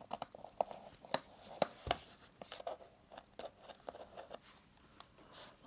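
Small irregular clicks and scrapes of a screwdriver turning a screw out of a laptop's bottom panel.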